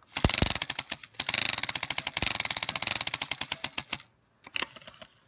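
A playing card clipped to a bicycle's rear frame stay with a clothespin, slapped by the spokes of the turning rear wheel: a fast run of clicks that slows and stops about four seconds in, with a short burst of clicks near the end.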